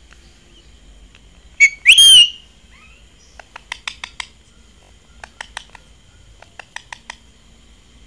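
Pet parakeets calling. About two seconds in there is a short loud squawk, then a shrill whistled screech that rises and falls. After that come three quick runs of short, sharp chirps, four or five in each run.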